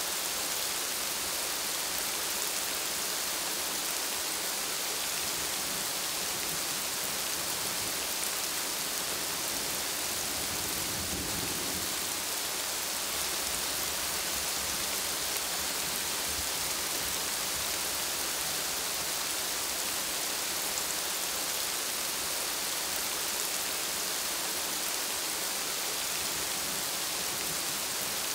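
Steady rain falling on broad plant leaves, an even hiss with no breaks.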